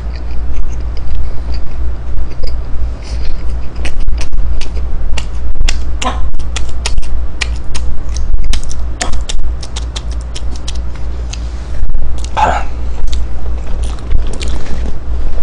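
A mouth chewing food close to the microphone, a run of small sharp clicks and smacks, over a steady low electrical hum.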